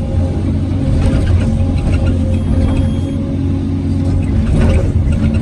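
Hyundai R850LC excavator's diesel engine running steadily.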